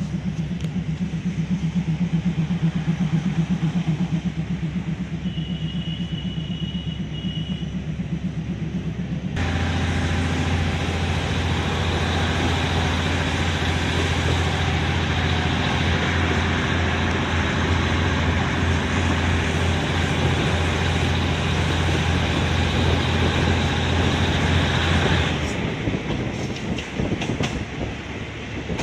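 Train running, heard from on board. A steady low drone is followed by a sudden switch to louder rolling rumble with a low hum. Near the end it eases off, with sharp clicks of wheels over rail joints.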